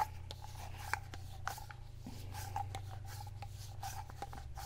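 Soft rubbing and scattered small clicks as the spray rod quick release is screwed by hand onto the DJI Agras T40 centrifugal spray rod assembly, over a faint steady hum.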